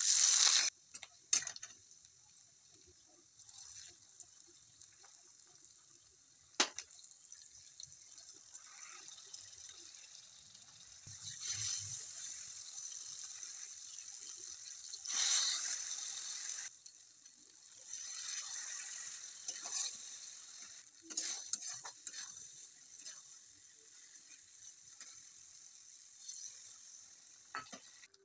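Sliced onions dropped into hot oil set off a loud sizzle. Steady frying hiss follows, flaring up several times as more is added and stirred in the pan, with the clicks and scrapes of a metal spatula against the pan.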